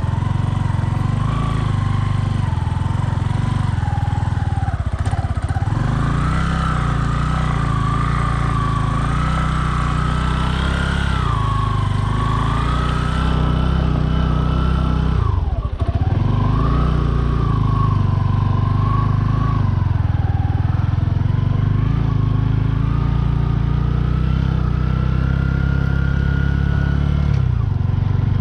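Bajaj Boxer 150 single-cylinder four-stroke engine running under way at fairly steady revs, with the pitch dipping briefly about five seconds in and dropping sharply for a moment about halfway through before picking up again.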